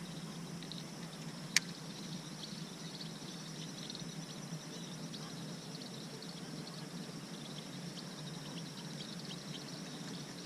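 Faint natural ambience of insects and birds chirping, over a steady low hum, with a single sharp click about one and a half seconds in.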